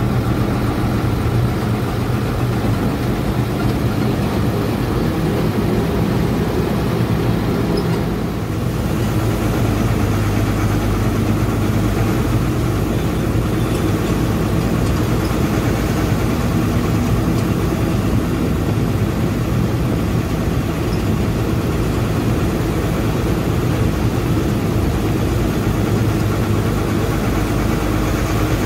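46-year-old Leyland bus diesel engine running steadily under its cowl beside the driver as the bus drives, heard from inside the cabin, with a brief dip in loudness about eight seconds in.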